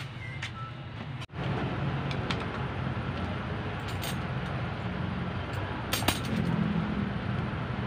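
A motor-vehicle engine running steadily, with a few light metallic clinks. The sound drops out for an instant about a second in.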